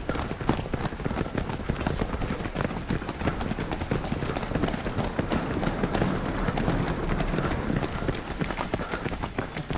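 Running footsteps of several marathon runners on an asphalt road: a quick, steady patter of shoe strikes, with the camera-wearer's own footfalls jolting close to the microphone.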